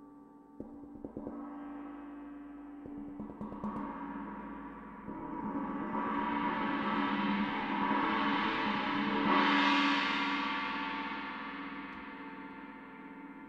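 22-inch Istanbul Mehmet Experience China cymbal played as a soft-mallet roll. It starts with separate light strokes, swells to a loud shimmering wash just before ten seconds in, then the strokes stop and it rings on and fades.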